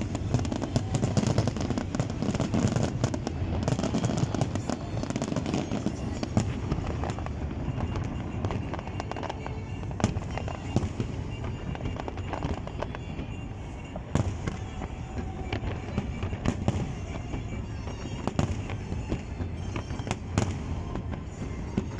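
Fireworks going off continuously: a dense run of sharp bangs and crackles over a low rumble, with music playing faintly underneath in the second half.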